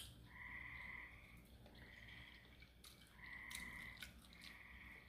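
Frogs calling outdoors, faint: four buzzy calls about a second and a half apart, each under a second long, with a few faint ticks in between.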